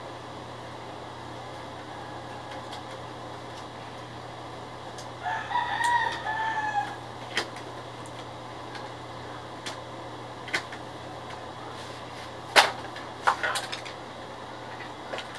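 A rooster crows once, about five seconds in, over a steady background hum. Later come a few sharp plastic clicks and knocks from the Epson L1300 printer's parts being handled; the loudest is near the end.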